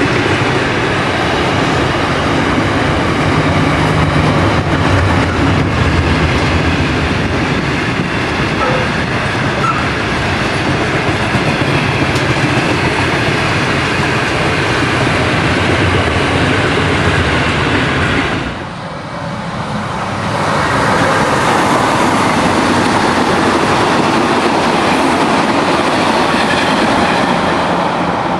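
Passenger trains passing close by: a diesel railcar set runs steadily with a low engine hum and wheels clicking over the rail joints. About two-thirds of the way through the sound cuts briefly, and a suburban electric train passes with a brighter rolling rumble.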